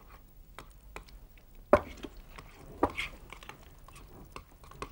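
Metal fork stirring chopped boiled egg in a thick creamy dressing in a glass bowl: irregular soft taps and clinks of the fork against the glass. The sharpest clink comes a little under two seconds in.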